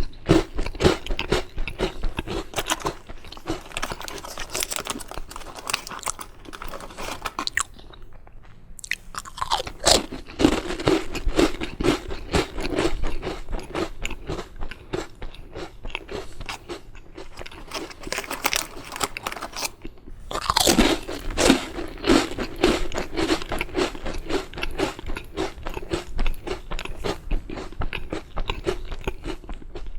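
Biscuits being bitten and chewed: a loud crunching bite followed by rapid crunchy chewing, happening three times, at the start, about ten seconds in and about twenty-one seconds in. There is a short lull just before the second bite.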